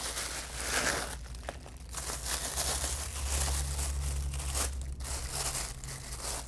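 Plastic packaging being handled and pulled off a boxed lens: bubble wrap, then a thin plastic bag, crinkling and rustling in uneven spells with short pauses.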